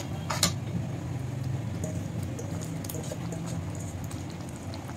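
A perforated steel spoon stirring ground tomato into oily, frying masala in a pan: faint scattered ticks and small pops over a steady low hum, with a brief stroke about half a second in.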